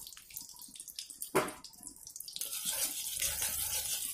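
Ghee melting in a hot kadhai: scattered faint crackles at first, then a steady sizzle that sets in about two and a half seconds in. A single sharp knock about a second and a half in.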